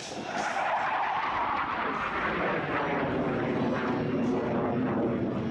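BAe Hawk 127 jet trainer's Rolls-Royce Turbomeca Adour turbofan passing overhead. The jet noise swells just after the start, then falls steadily in pitch as the aircraft draws away.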